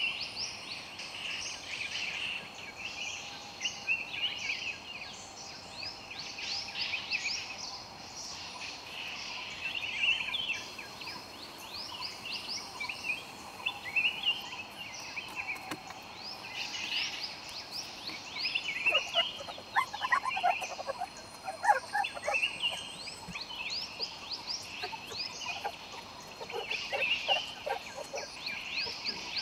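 A dense chorus of birds chirping, many quick high calls repeating over and over, with a run of lower-pitched chirps about two-thirds of the way through.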